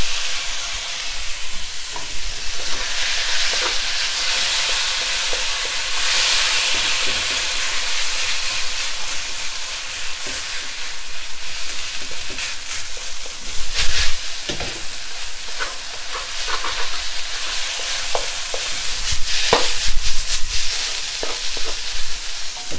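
Fried rice sizzling in a hot wok just after soy sauce goes in. A wooden spatula scrapes and knocks against the wok now and then as the rice is stirred and tossed, loudest around the middle and near the end.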